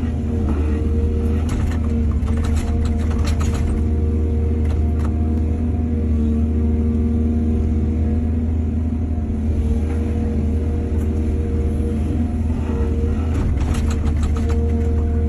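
Excavator diesel engine running steadily under load, with two short spells of clattering, about two seconds in and again near the end.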